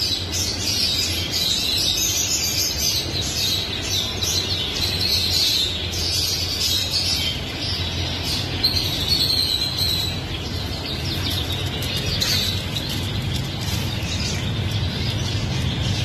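Many caged canaries singing and chirping together in a dense, continuous chorus of trills and warbles, over a low steady hum.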